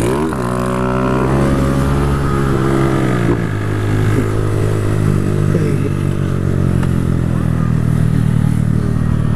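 Motorcycle engine running loud; its pitch climbs sharply just after the start, sinks back over the next few seconds, then holds steady.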